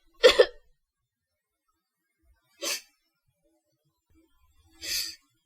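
A person crying softly: a short voiced sob about a quarter second in, then two brief breathy intakes of breath near the middle and near the end, with silence between them.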